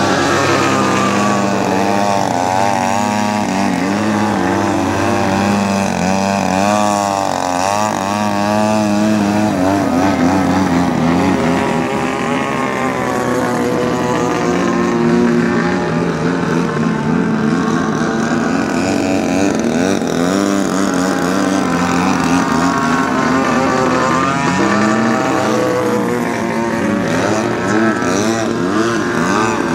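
Engine and propeller of an 89-inch Slick aerobatic radio-controlled model airplane, revving up and down as the throttle is worked through hovers and low passes. The pitch rises and falls constantly, with several quick wavering swings.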